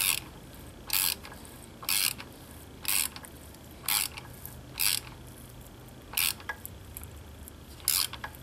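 Ratchet wrench clicking in short bursts, about once a second, as it is swung back between strokes. It is turning a Heli-Coil thread-repair tap that is cutting new threads into a bolt hole.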